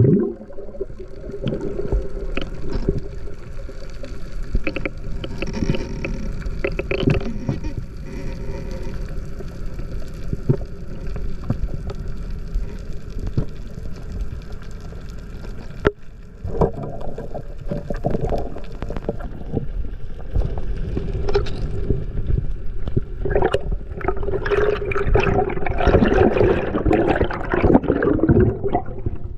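Underwater sound picked up by a diver's action camera: a steady muffled water rush with scattered small clicks and gurgles. It grows louder and busier in the last few seconds, among bubbles near the surface.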